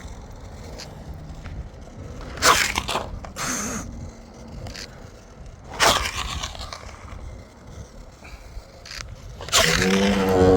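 Floatwheel ADV one-wheeled electric board with ADV2 kit skidding through hard stops: short scraping bursts about two and a half, three and a half and six seconds in, then a longer, louder one near the end with a pitched edge. This is the unexplained noise the board makes on hard stops and slides.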